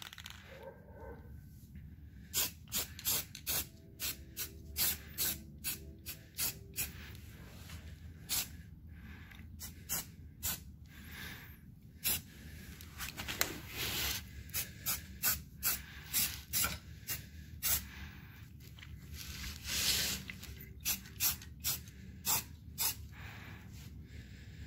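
Aerosol can of Rust-Oleum spray paint hissing in many short bursts, with a few longer sprays, as paint is laid on in quick passes.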